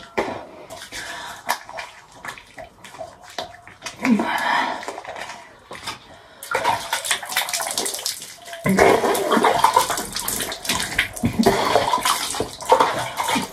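Wet hands rubbing foamy face wash over skin with small squelching clicks, then from about halfway splashing water as the face is rinsed.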